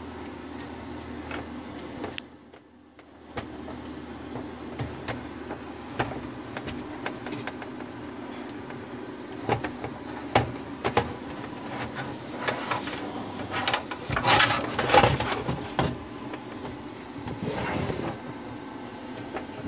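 Handling noise from the recording phone: scattered clicks and knocks with rustling against the microphone over a steady low hum. The rustling thickens about fourteen seconds in and again near the end.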